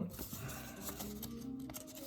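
Soft background music with long held notes.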